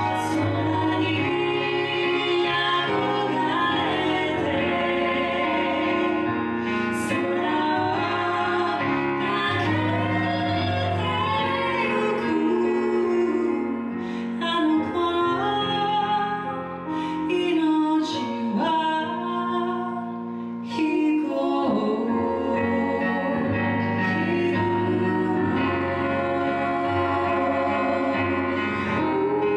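Two women singing a slow ballad into microphones, accompanied by a Yamaha CP4 stage piano, heard through a small PA in a room.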